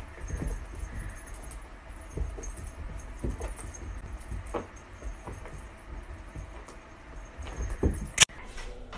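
Soft thumps and scuffs of a kitten's paws on carpet as it pounces and spins after a laser-pointer dot, with one sharp click near the end.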